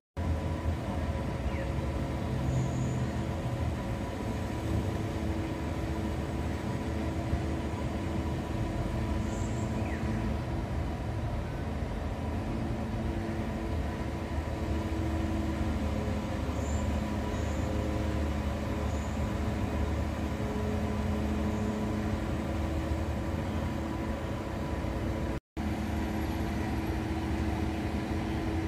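Diesel engine of a truck-mounted crane lorry running steadily to power the crane, a constant low hum with tones that shift up and down in pitch now and then as the crane works a hanging bulk bag.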